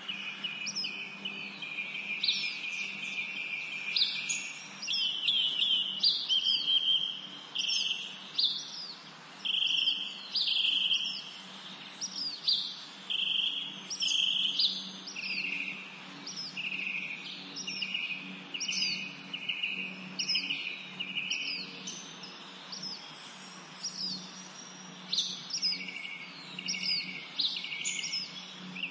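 Small songbirds singing without pause: quick high chirps that sweep downward, mixed with buzzy trilled phrases, over a faint low steady hum.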